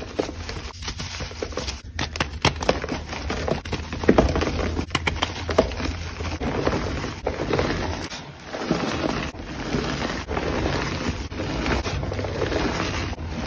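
Hands crushing and crumbling blocks of reformed gym chalk: a continuous dry crunching with many small sharp cracks, dipping briefly about eight seconds in.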